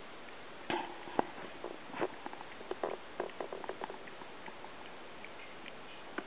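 Husky licking out an empty metal dog food can: a quick run of clicks and short scrapes as tongue and snout work against the tin, thinning out after about four seconds.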